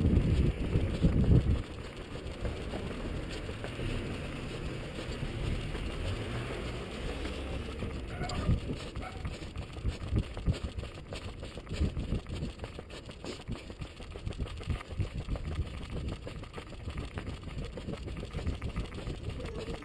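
Wind and handling noise on a running body-worn camera's microphone, a heavy low rumble in the first second or two, then a steadier hum of street traffic under irregular thumps from the runner's footfalls and jostling.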